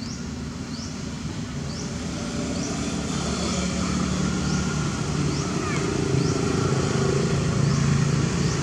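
A motor vehicle's engine droning, growing louder over the first few seconds and then holding steady. Short high rising chirps repeat above it roughly once a second.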